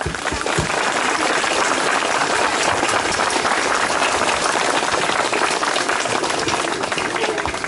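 Audience applauding: many hands clapping steadily, easing off at the very end.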